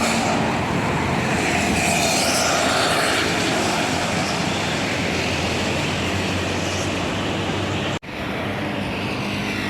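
Big bus passing close by: a loud, steady engine drone with road and wind noise. The sound drops out for an instant about eight seconds in and comes straight back.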